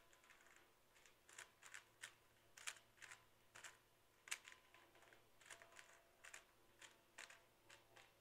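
Faint, irregular plastic clacks of a speed cube being turned by hand while a scramble is applied, about twenty quick turns spread unevenly, some in short runs.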